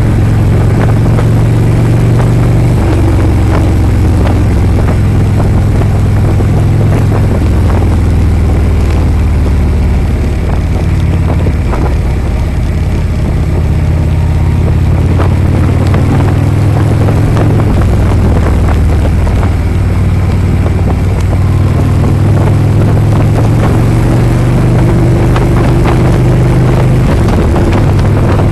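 Harley-Davidson V-twin motorcycle engine running under way, loud and continuous, its low note stepping up and down several times as the speed changes.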